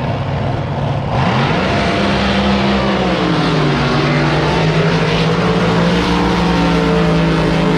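Racing drag boat engine at full power. It comes in loud about a second in, its pitch climbs, dips, then holds steady over a wash of spray and exhaust noise.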